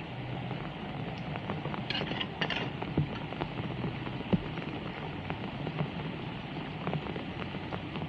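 Heavy rain falling steadily on a flooded road, with scattered small knocks and two brief scrapes about two seconds in as a hooked metal tool works at a storm drain grate.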